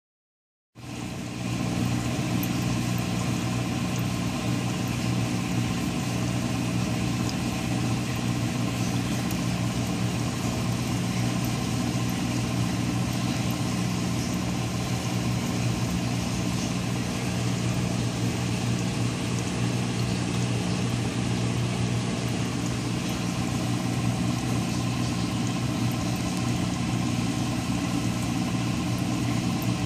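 Aquarium pump humming steadily: a low electric hum with a hiss over it, starting about a second in.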